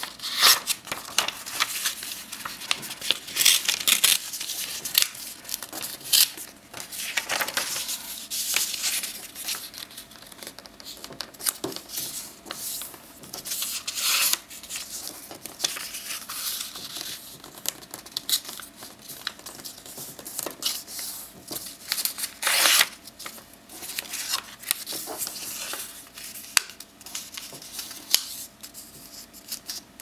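A sheet of paper being folded by hand: irregular crisp rustles and swishes as it is bent over and pressed flat, with fingers pressing along the creases.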